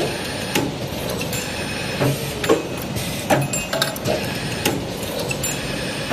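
CNC tube bevelling and chamfering machine running: a steady machine noise with irregular sharp knocks about once a second, as short tubes are cycled through.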